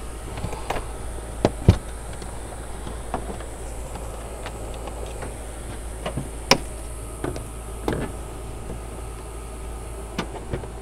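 Scattered sharp clicks and knocks from a Toyota Tundra's plastic air-filter box being handled: its clips are released and the lid is lifted off the filter. The clicks come singly, a few seconds apart, over a steady background hum.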